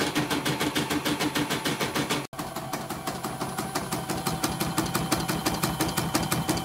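E900 single-head embroidery machine stitching a design on a test run: a fast, even clatter of needle strokes, roughly ten a second, from the needle bar and rotary hook. The sound drops out for an instant a little over two seconds in.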